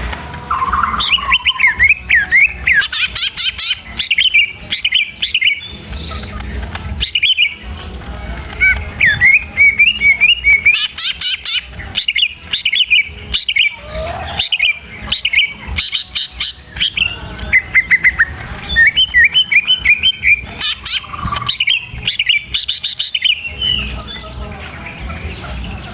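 Young songbird chirping in rapid runs of short, high, sliding notes, broken by brief pauses, over a low background rumble.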